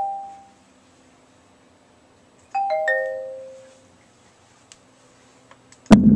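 A three-note chime test tone plays through a Logitech X-530 surround speaker during a 5.1 channel test, a sign that the channel works after the burnt-trace repair. One chime is fading out at the start, and a second, descending chime comes about two and a half seconds in. Just before the end a loud, low sound cuts in abruptly.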